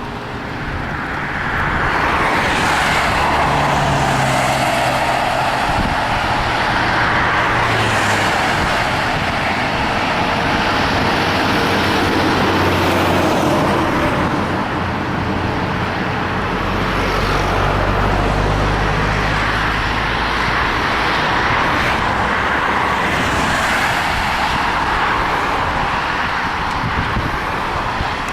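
Continuous road-traffic noise: a steady rush that swells and fades as vehicles go past, with the low hum of heavier engines passing twice.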